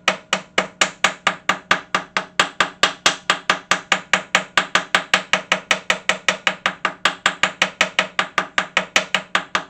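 Small number 2 Plumb hammer tapping rapidly and evenly, about five light blows a second, on cardstock held against the saw's metal to tap out the outline of a template.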